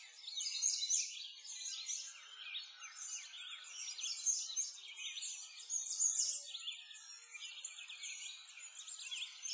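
A dense chorus of many birds chirping at once, quick high calls overlapping without a break.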